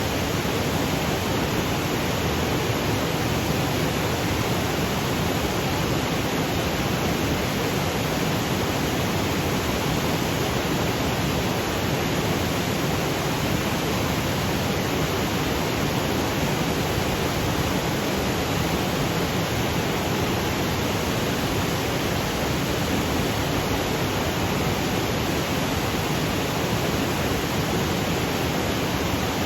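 Waterfall cascading over granite boulders: a steady, even rush of falling water with no changes or breaks.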